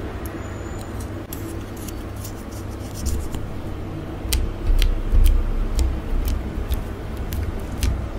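Makeup applicator wand dabbing red liquid onto clear slime: a string of small sharp clicks and taps at irregular intervals, busiest in the second half, over a steady low rumble.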